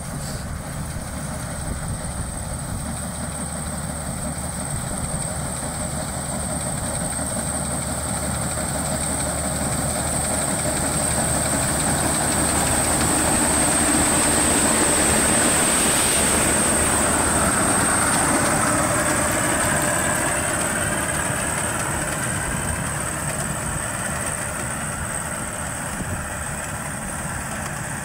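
Maxxi Bimo 102L combine harvester running while it harvests rice: steady diesel engine and machinery noise with a constant high-pitched whine above it. It grows louder toward the middle as the machine comes close, then eases off.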